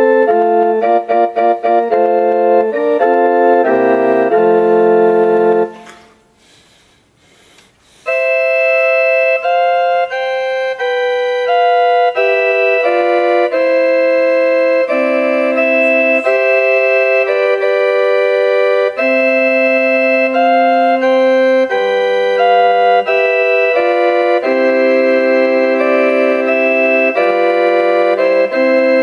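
Casio LK-250 electronic keyboard playing songs from its built-in song bank in held chord notes. One tune ends about five and a half seconds in, and after a two-second pause the next song begins.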